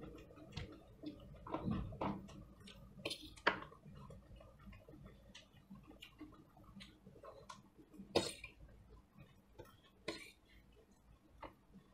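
Spoon and fork clinking and scraping against stainless steel plates as two people eat, a series of short scattered clinks; the sharpest come about three and a half and about eight seconds in.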